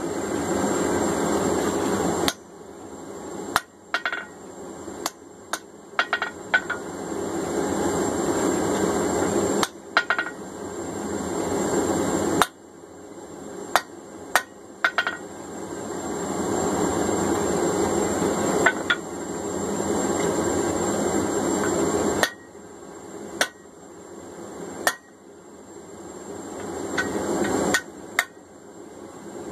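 Hand hammer striking steel held in tongs on an anvil: single ringing blows and quick pairs at irregular intervals. A steady rushing noise from the running forge fills the gaps between blows.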